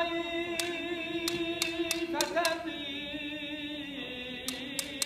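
An unaccompanied voice singing long held notes with vibrato, the pitch stepping down about two seconds in. A few sharp clicks come here and there.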